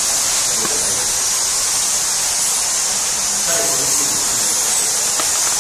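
A steady, even high-pitched hiss, with faint voices about three and a half seconds in.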